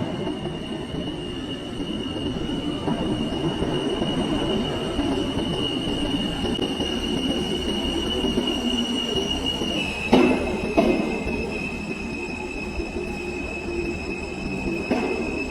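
New York City subway J train moving along the platform with a steady rumble and a high, steady squeal of wheels on rail. About ten seconds in the squeal steps slightly lower in pitch, and two sharp clunks are heard.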